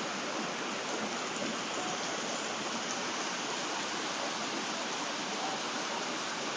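Heavy rain falling steadily on wet paving and puddles: an even, unbroken hiss with no let-up.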